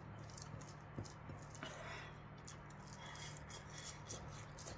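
Soft eating sounds: fingers mixing rice and curry in a ceramic bowl, with scattered small wet clicks and smacks, over a steady low hum.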